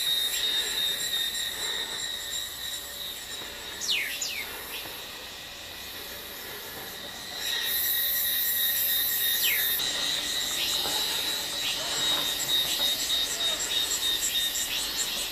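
Chorus of insects buzzing steadily, growing louder about halfway through, with two short falling whistle calls, one about four seconds in and one just before the ten-second mark.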